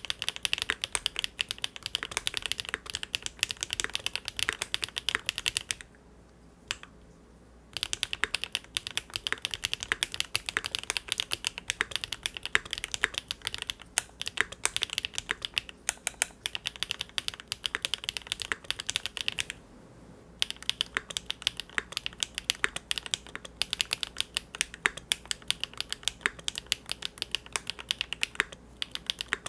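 Rapid, continuous typing on a Linworks Big Whale custom mechanical keyboard with GEON Raw Zero switches on a polycarbonate (PC) plate. It pauses briefly twice: once about six seconds in, with one lone keystroke, and again about twenty seconds in.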